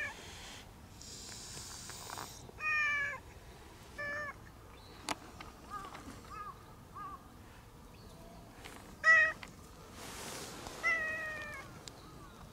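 A cat meowing repeatedly at close range: about half a dozen short meows, the loudest about nine seconds in.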